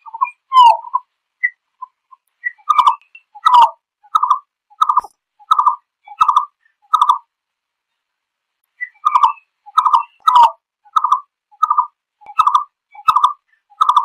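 Green-billed malkoha calling its flock: two runs of short notes, evenly spaced at about one and a half a second, with a pause of about a second and a half between them. A few softer, scattered notes come before the first run.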